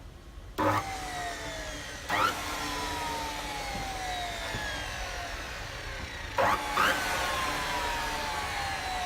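Aluminium-cutting saw with a 305 mm blade running. Four loud bursts come about half a second in, at two seconds and twice near six and a half seconds, and each is followed by a falling whine.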